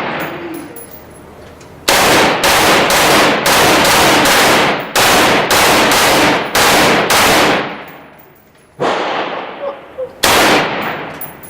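Rapid gunfire: a fast string of shots, about three a second, for roughly six seconds with two brief breaks, followed by two single shots, each ringing on in the range.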